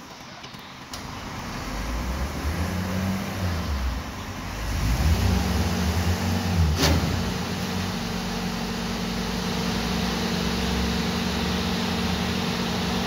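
Container truck's diesel engine running, building up over the first few seconds and loudest about five to seven seconds in, then settling into a steady idle. A brief sharp noise cuts through about seven seconds in.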